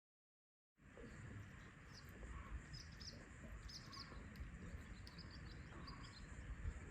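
Silence at first; less than a second in, outdoor ambience fades up: small birds chirping in short, repeated notes over a steady low rumble.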